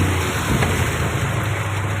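Car engine running steadily under a constant rush of water as the car drives through a flooded street.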